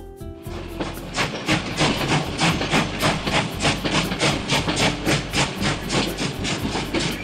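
Steam locomotive chuffing sound effect: a steady train of hissing chuffs, about four a second, starting about half a second in.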